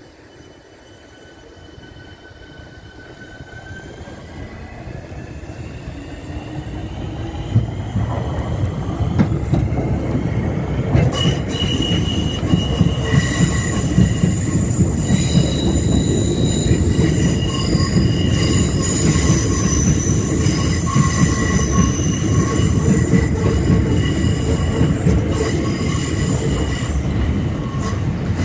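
Southeastern Class 465 Networker electric train pulling out, its motor whine rising in pitch as it speeds up and its running noise growing louder over the first several seconds. Once it is alongside, several steady high squeals from the wheels on the curved track sound over a heavy rumble and clatter of wheels on rail joints.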